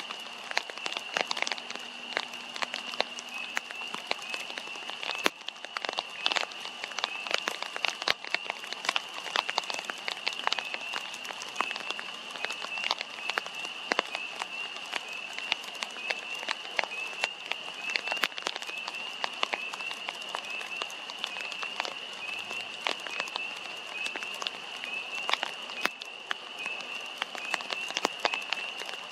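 Raindrops dripping and pattering in irregular clicks, over a steady high-pitched chorus of calling frogs.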